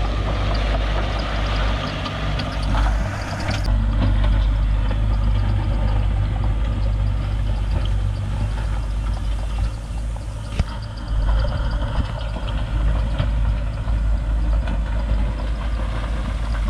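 Heavy construction-machine diesel engine running steadily with a deep rumble. The sound changes about four seconds in, and there is a single sharp click near the middle.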